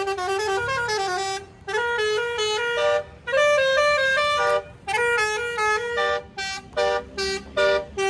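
Basuri (multi-tone telolet) horn on a red Toyota Kijang Innova playing a quick melody. Its notes step up and down in short phrases, with brief breaks between them.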